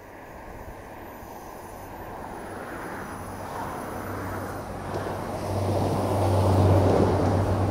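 A modern passenger multiple-unit train approaching along the track and running past close by. Its rumble and low hum grow steadily louder and are loudest near the end as it passes.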